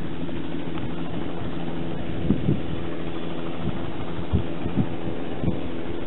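Spray helicopter's engine and rotor running steadily on the ground while its spray tanks are refilled: a steady throbbing hum, with a few short low thumps.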